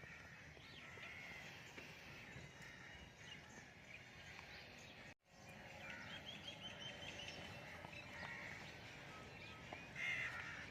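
Faint outdoor ambience with birds calling: scattered short calls and chirps, a quick run of chirps just after the middle, and a louder call near the end. The sound drops out completely for a moment about halfway through.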